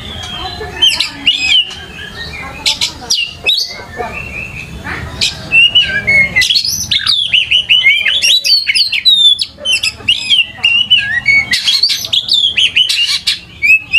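Oriental magpie-robin (kacer) in full song: a long, varied run of loud whistles, slurred rising and falling notes and sharp chirps, growing faster and denser about halfway through.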